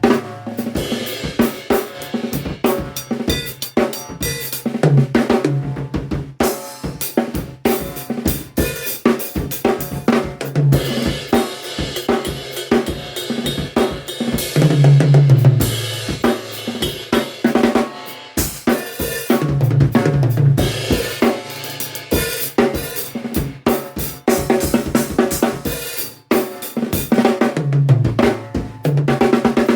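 Yamaha Stage Custom Hip drum kit played continuously with snare, bass drum and Zildjian A Custom hi-hat and ride cymbal, broken every few seconds by tom fills that step down in pitch. Raw sound through a phone microphone.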